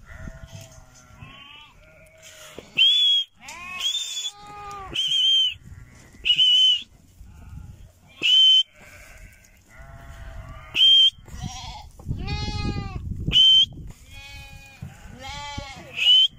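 A flock of Harri sheep, ewes and lambs, bleating on and off with calls of different pitches. About eight short, sharp, high whistles cut in among the bleats and are the loudest sounds.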